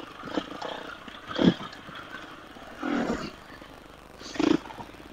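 Husqvarna FE 350 four-stroke single-cylinder dirt bike engine on the trail, revving in three short throttle bursts about a second and a half apart, with quieter running in between.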